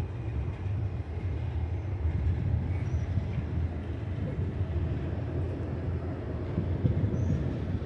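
Double-stack intermodal well cars rolling past: a steady low rumble of steel wheels on rail.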